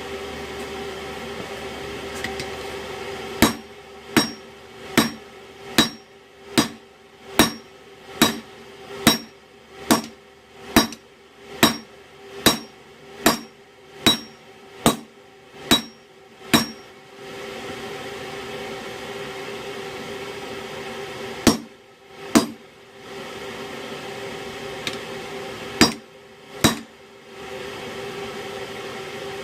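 Hand hammer striking hot rebar steel on an anvil while forging an axe: a run of about sixteen even blows at a little over one a second, then two pairs of blows after a pause, each with a short metallic ring. A steady hum fills the gaps between the hammering.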